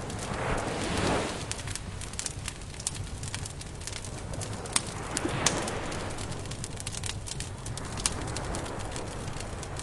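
Campfire crackling, with frequent sharp pops and snaps. Two softer, lower swells of sound rise and fall beneath it, one near the start and one about halfway through.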